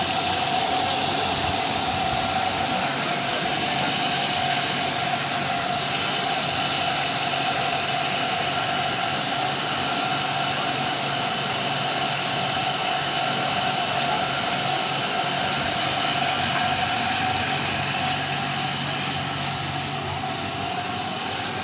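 Steady mechanical drone with a constant mid-pitched whine, unchanging.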